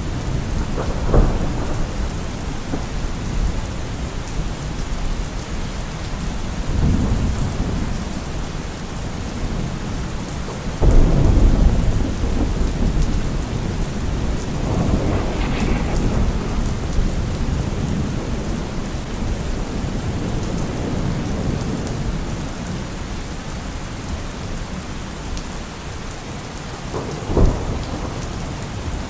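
Steady rain with thunder: several low rolling rumbles and a few sharp cracks over the hiss of the rain, the loudest rumble about eleven seconds in.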